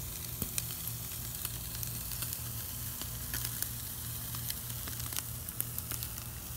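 Herb-butter-rubbed rack of elk searing on a kamado charcoal grill's grate at about 500°, a steady sizzle with small scattered pops and crackles as the butter and fat hit the hot grate during the reverse sear.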